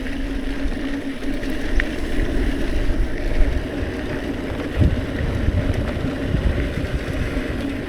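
Hardtail mountain bike rolling along a dirt trail, with tyre and trail rumble and wind rushing over the microphone. There is a low thump about five seconds in.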